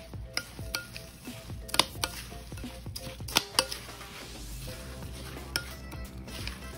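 A metal fork stirring and mashing a mixture of crushed crackers and crab in a glass mixing bowl, tapping and scraping against the glass in irregular clicks.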